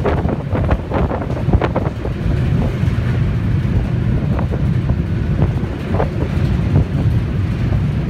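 Wind buffeting the microphone in gusts, strongest in the first couple of seconds, over the steady low rumble of a boat's engine.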